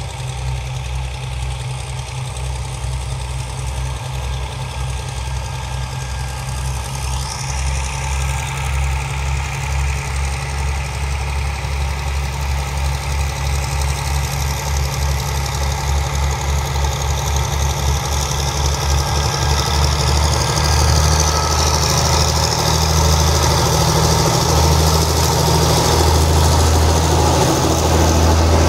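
Diesel locomotive's engine running with an even, low throb at slow speed, growing steadily louder as it approaches; a higher hiss builds in over the last third.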